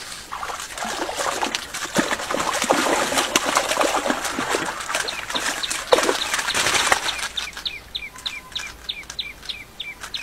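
Water splashing and churning in a small pool as a fish thrashes on the line at the surface, for about seven seconds. Then a bird calls in a quick run of short falling notes, about four a second.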